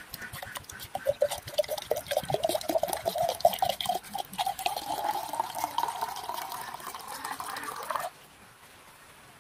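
70% rubbing alcohol being poured into a glass jar; the pitch of the pour rises steadily as the jar fills. The pour stops about eight seconds in.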